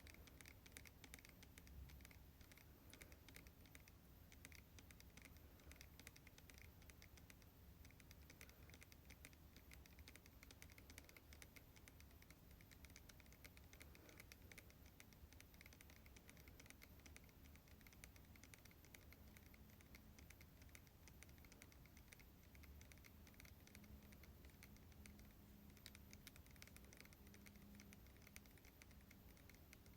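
Faint, quick tapping on hair-product containers, a steady run of small clicks.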